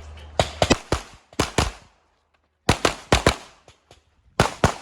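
Rapid handgun shots, about a dozen sharp cracks fired in quick strings of two and three. There is a brief pause about two seconds in.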